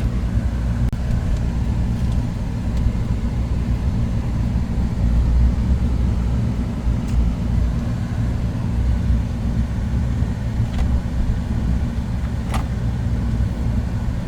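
Steady low road and engine rumble heard inside a moving truck's cab, with a few faint clicks scattered through it.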